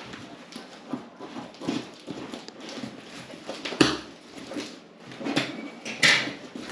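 Cardboard shipping box and packing tape being handled and pulled open by hand: irregular rustling and scraping, with a louder knock about four seconds in and another about six seconds in.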